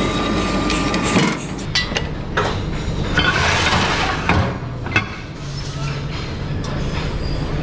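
Steel plate and fittings on a pinch plate rolling machine clanking, clinking and scraping as the cone and snubber are shifted between passes. The machine's low hum drops away about a second in and returns near the end.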